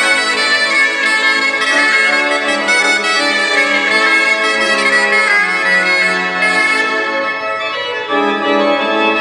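Church pipe organ playing a Breton gavotte du pays Pourlet in a solo passage, with sustained chords under a moving melody line.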